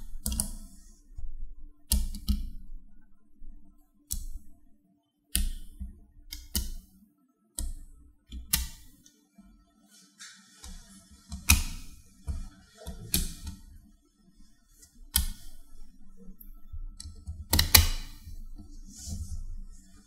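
Small cube and ball magnets snapping together with sharp metallic clicks, irregularly every second or two, as the panels of a large magnet polyhedron are pressed shut. The loudest snap comes near the end.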